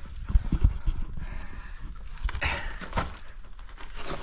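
Panting breaths heard up close, with scuffs and a few low knocks in the first second as someone moves through a low rock passage.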